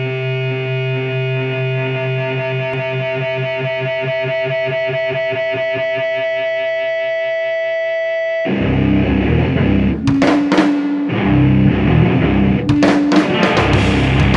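A held, pulsing chord rings for about eight and a half seconds. Then a rock band comes in loud with drum kit, cymbal crashes and distorted electric guitars.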